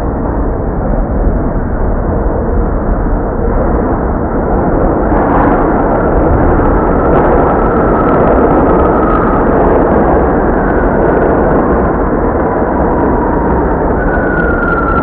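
New York City subway train running: a loud, steady rumble and rattle, with a faint high squeal that falls slowly in pitch around the middle and again near the end.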